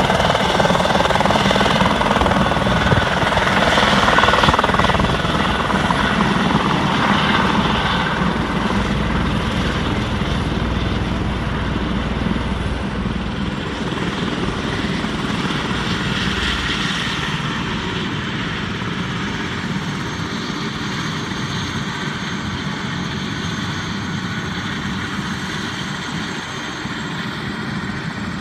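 Eurocopter EC130 helicopter's rotor and turbine, loudest in the first several seconds as it settles and touches down. It then keeps running on the ground, growing gradually quieter, with a steady high whine under the rotor noise.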